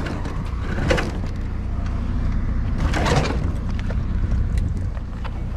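A vehicle engine idling steadily, with a few knocks and rustles from objects being handled, about one and three seconds in and again at the end.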